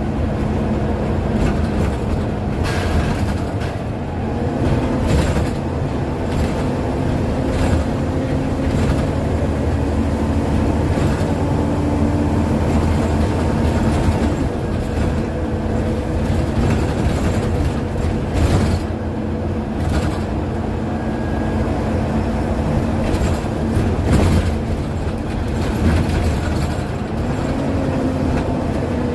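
Scania OmniDekka double-decker bus under way, heard from the upper deck: a steady diesel engine and drivetrain drone whose pitch slowly rises and falls as the bus accelerates and changes gear. Short rattles and knocks from the body and fittings are heard over the road.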